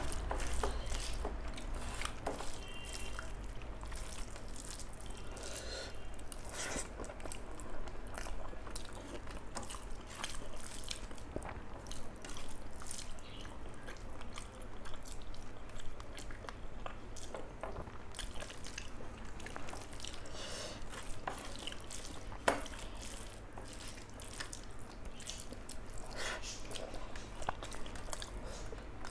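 Close, wet eating sounds of rice with curries: chewing, lip smacks and the squish of soft food, as irregular small clicks.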